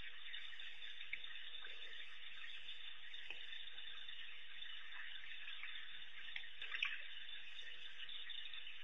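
Steady high-pitched hiss of waterhole ambience, with a few faint clicks, the loudest cluster coming about two-thirds of the way in.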